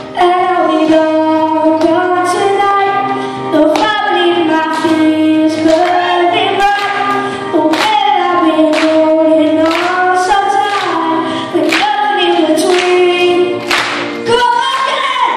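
A male solo singer singing a pop ballad into a microphone, the amplified voice loud and carrying the melody in sung phrases with short breaths between them.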